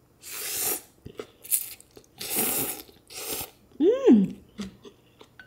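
Instant ramen noodles slurped up in four pulls, the longest near the start and middle, followed about four seconds in by a short hum that rises and falls in pitch.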